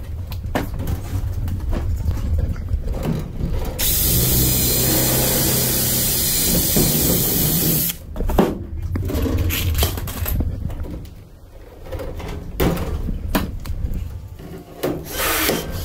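DeWalt cordless drill running steadily for about four seconds, drilling into aluminum angle framing. Before and after it, short clanks and rattles of tools and metal being handled.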